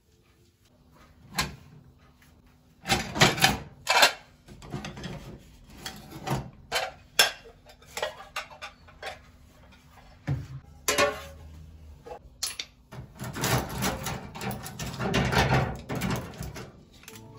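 Household objects being handled: a run of separate knocks and clatter, with a denser stretch of clatter and rustling from about 13 to 16 seconds in.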